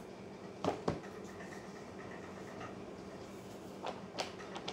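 Handling of a cardboard box and printed notes: two short sharp rustles about a second in, then a few quick page flips of a bound notes volume near the end, over a steady low hum.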